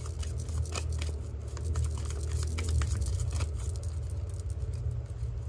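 Deck of oracle cards being handled and shuffled, with soft irregular clicks and flicks, over a steady low hum.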